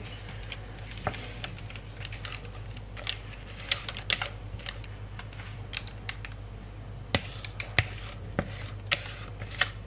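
Carrot cake batter being poured and scraped from a mixing bowl into a parchment-lined baking tin: scattered light clicks, taps and scrapes against the bowl, over a steady low hum.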